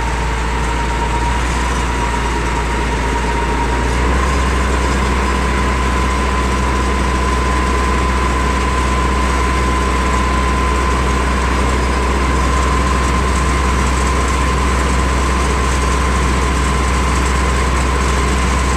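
Sewer-cleaning truck's engine and pump running steadily: a low drone with a steady whine above it, both stepping up slightly about four seconds in. The truck is working a hose down a clogged manhole.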